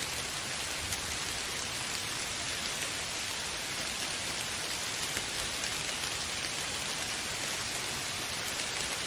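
Steady rain falling, an even hiss of drops on a surface with faint individual drop ticks, unchanging throughout.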